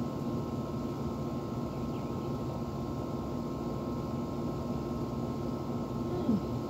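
Steady mechanical hum and rush of an outdoor air-conditioner condenser unit running. Near the end there is one short voice-like sound that falls in pitch.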